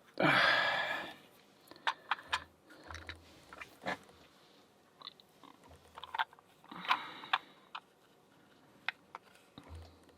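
Small lock parts being handled: a short scrape right at the start, then scattered light clicks and taps, with another brief scrape about seven seconds in.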